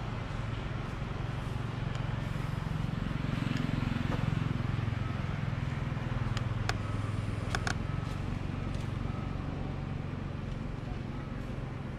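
Low rumble of a motor vehicle engine that swells about four seconds in and then fades, with a few sharp clicks near the middle.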